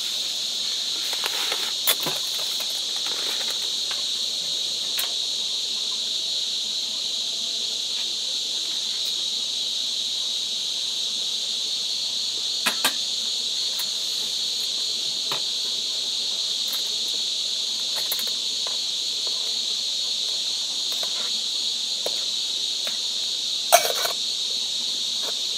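Steady, high-pitched chorus of night insects such as crickets. A few light clinks of cookware sound over it as a pot and its lid are handled, the loudest about a second before the end.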